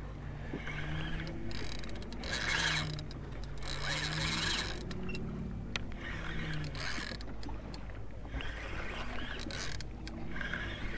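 Penn spinning reel being cranked to wind in line against a hooked fish, its gears and rotor whirring in several spells with short pauses between, over a steady low rumble of wind and water.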